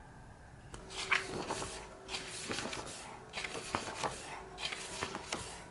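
Pages of large books being turned and the books handled on a table: paper rustling with soft knocks, starting about a second in.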